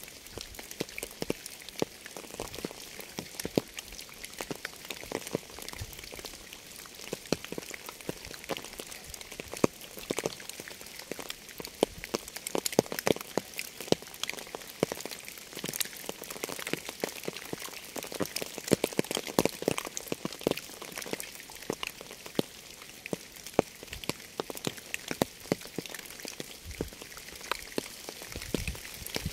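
Rain falling on a surface: a steady high hiss with many separate drops striking irregularly and close together.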